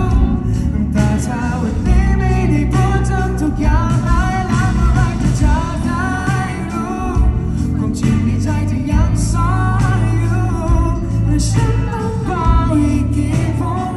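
Male singer singing a pop ballad live into a microphone over a live band of drums, bass and electric guitar, heard through the concert PA.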